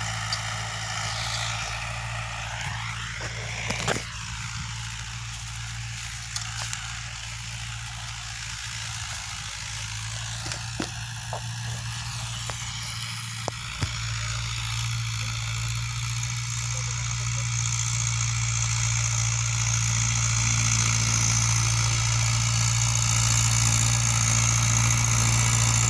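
Mahindra 575 DI tractor's four-cylinder diesel engine running steadily under load as it pulls a seven-disc harrow, a low drone that grows louder in the second half as the tractor comes closer. A few sharp clicks sound about 4, 11 and 14 seconds in.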